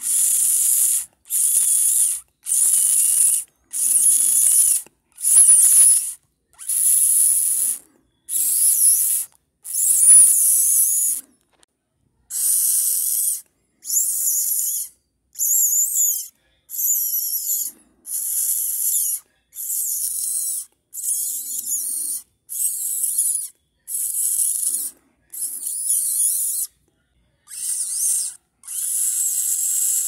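A person imitating a mink's squeaking call by sucking air in through teeth pressed on the lower lip: a hiss with a high squeak wavering through it, repeated about once a second, each under a second long, with a short pause about eleven seconds in.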